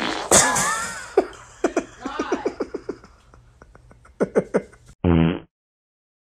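A fart: a loud sudden start, then a long sputtering run of quick pulses, another short sputter about four seconds in, and a brief buzzy blast just after five seconds before the sound cuts off.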